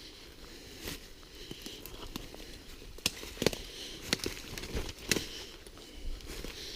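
Footsteps through forest undergrowth: irregular rustling and crackling, with a few sharp snaps, the loudest a little past halfway.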